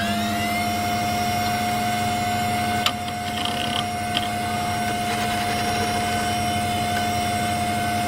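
A steady machine-like whine that has just wound up in pitch and now holds one tone over a low hum, with a single sharp click about three seconds in.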